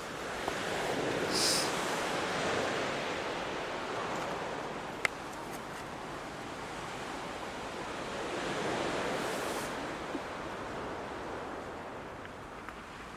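Sea waves washing onto the beach, swelling about two seconds in and again near the end. A single sharp click about halfway through.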